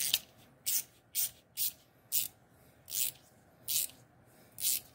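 Small Klein Tools ratchet clicking in short rasping bursts as it is swung back and forth, about nine strokes, roughly one every half second to second.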